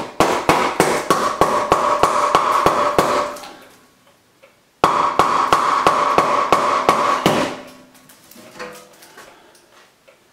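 Hammer blows on a wooden block held against the end of an 8-inch stove pipe, driving the pipe into the chimney opening. There are two quick runs of strikes, about four a second, each lasting a few seconds with a short pause between, and a steady ringing tone sounds under the blows. The pipe is sticking and going in only slowly.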